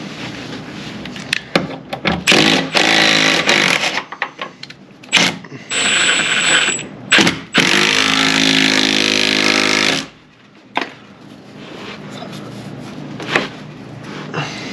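Handheld air-powered shop tool running in two bursts, a short one about two seconds in and a longer one of about four seconds from the middle, with a few sharp metal knocks in between.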